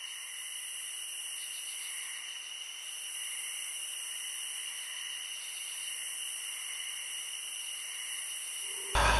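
Steady high-pitched hiss of background ambience with no voices. Just before the end, a louder, fuller sound with a low hum cuts in abruptly.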